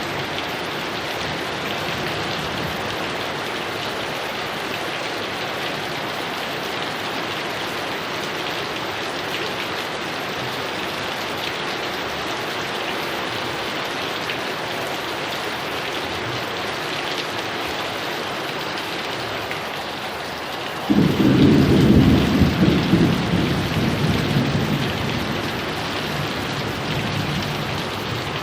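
Steady heavy rain falling. About three-quarters of the way through, a sudden loud clap of thunder breaks in and rumbles on, fading over several seconds.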